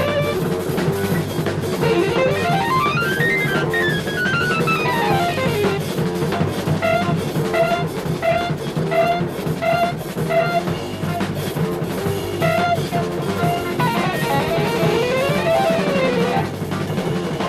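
Jazz-rock fusion band playing live, with drum kit and electric guitar over bass and keyboards. Quick runs of notes rise and fall about two seconds in and again near the end, with a short note repeated steadily in between.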